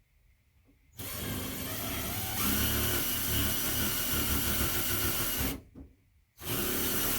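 Power drill running in two bursts: a run of about four and a half seconds that gets louder partway through, then a second run starting near the end.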